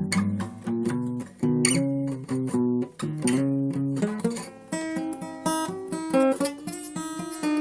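Acoustic guitar played solo: a quick run of plucked notes and chords, moving higher in pitch in the second half.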